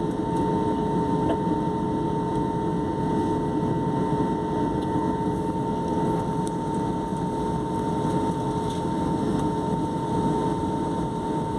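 Jet airliner cabin noise while taxiing at idle power: a steady engine rumble and airflow hiss with two steady whining tones over it.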